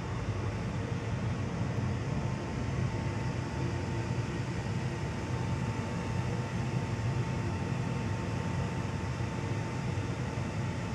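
Steady low rumble and hiss with a faint thin whine held throughout, even and unchanging, like ventilation or room machinery noise.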